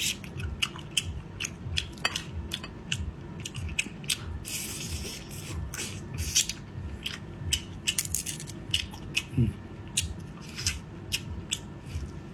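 Close-up eating of a big crab claw: irregular sharp cracks and crunches of shell, about two or three a second, mixed with wet chewing.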